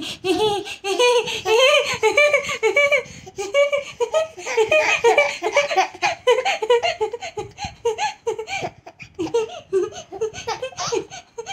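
A woman and a toddler laughing together, in repeated bursts of laughter.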